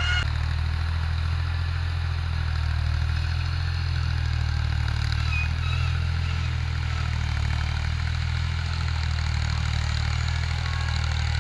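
A motor engine running steadily at idle, a low, even drone throughout, with a faint high chirp about halfway through.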